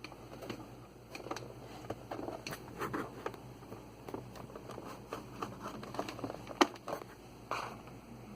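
Handling of a plastic label printer and its power-adapter plug: scattered light clicks and rustles, with one sharp click about two-thirds of the way through.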